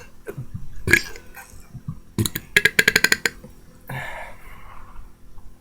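A man burping: short belches, then a croaky, rattling burp of rapid pulses about two and a half seconds in, followed by a breathy sound.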